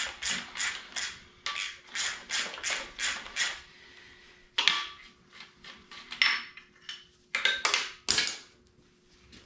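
Ratchet wrench clicking in quick strokes as connecting-rod cap nuts on an engine's bottom end are loosened for a rod-bearing swap, followed by a few separate sharp metallic knocks.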